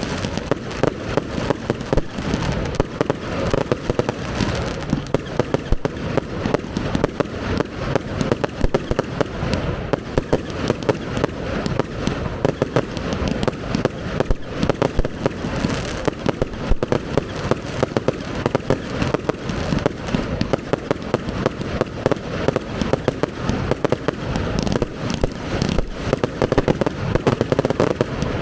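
Professional fireworks display: a dense, unbroken barrage of bangs and crackle, several reports a second.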